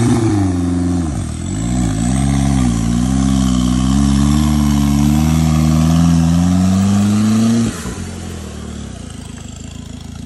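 Off-road 4x4 competition car's engine revving hard while the car is stuck in deep muddy water. The pitch wavers up and down and slowly climbs, then drops suddenly to a lower, steady running note about eight seconds in.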